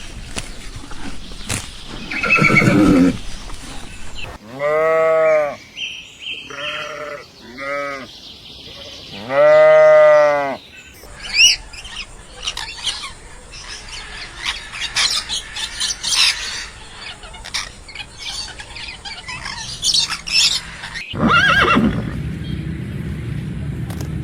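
A run of farm animal calls. Two long and two short calls rise and fall in pitch, then come higher scattered chirps, then a louder, noisier call near the end.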